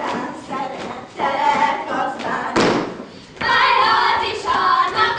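A group of girls singing a Hungarian folk song in unison as they dance a karikázó circle dance, with their steps thudding on the stage floor. A sharp stamp comes about two and a half seconds in, and the singing comes back louder about a second later.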